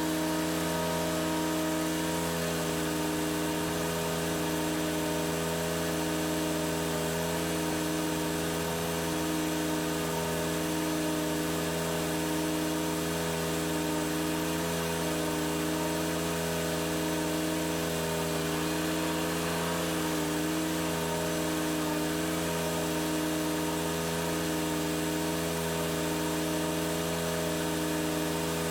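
Toro Z Master 60-inch zero-turn mower running steadily while mowing, heard from the machine itself, with a slow, even throb in its engine drone.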